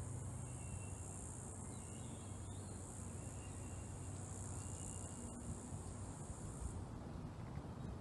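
Steady high-pitched insect buzz that cuts off about three-quarters of the way through, over a low steady hum, with a few faint short whistled notes.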